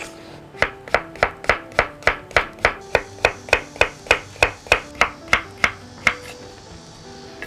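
Chef's knife slicing Korean zucchini on a wooden cutting board: a steady run of about twenty crisp strokes, roughly three a second, starting about half a second in and stopping about six seconds in, over soft background music.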